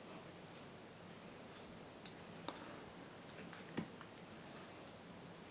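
A few faint, sharp clicks over low room hiss, the loudest nearly four seconds in: fly-tying scissors snipping off the tying thread after the whip finish on the head of a small nymph.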